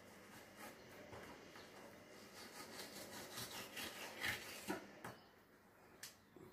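Kitchen knife scraping and sawing against a plastic cutting board as it separates a perch fillet from its skin: a quick series of faint scrapes and ticks, busiest a few seconds in, then quieter with one sharp tick near the end.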